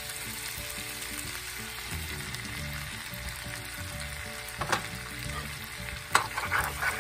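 Sliced potatoes and onions sizzling steadily in a hot cast iron skillet. A metal spoon clinks and scrapes against the skillet once about two-thirds through, then repeatedly near the end as the onions are stirred in.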